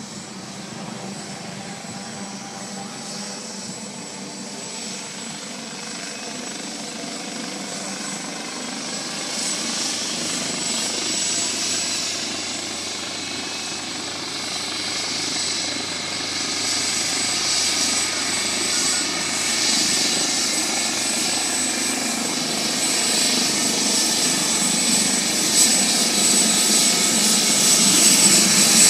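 AgustaWestland AW139 helicopter coming in low along the runway, its rotor and twin turboshaft engines growing steadily louder as it nears. A thin high turbine whine rides over the rotor noise.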